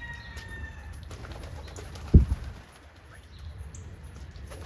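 Homing pigeons: a brief flurry of wing flaps about two seconds in, the loudest sound, over a steady low rumble. A thin, high whistle-like tone sounds through the first second.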